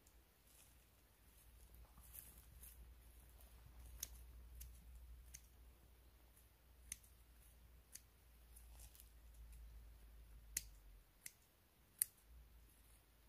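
Near silence broken by a few faint, sharp clicks and snaps, the sharpest about four, ten and a half and twelve seconds in, over a faint low rumble that stops near the end.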